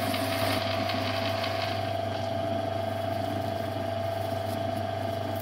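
Metal lathe running with a steady gear whine over a low motor hum while a cut parts off a length of plastic tubing.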